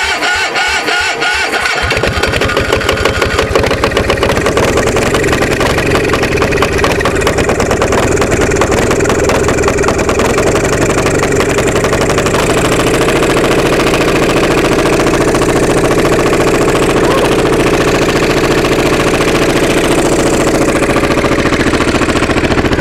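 Onan MDJE two-cylinder diesel generator set cranking on its electric starter after glow-plug preheat, catching about two seconds in. It then runs roughly, trying to fire on both cylinders, and settles to a steadier run about twelve seconds in.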